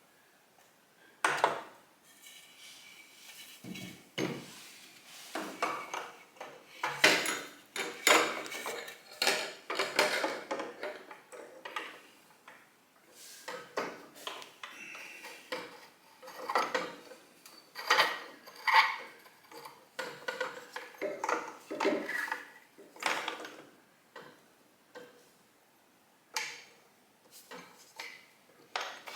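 Metal parts and hand tools clinking and clattering in short, irregular clusters of knocks, as exhaust header hardware is handled and fitted.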